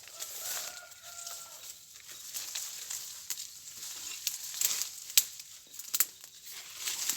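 A rooster crows once near the start, a steady call about a second and a half long, followed by a few scattered sharp cracks and rustles.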